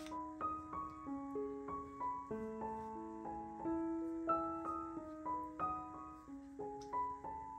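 Background piano music: a melody of separate held notes.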